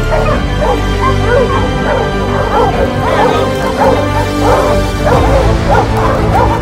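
A pack of bear hounds barking and baying repeatedly at a black bear they have brought to bay, over background music with held notes.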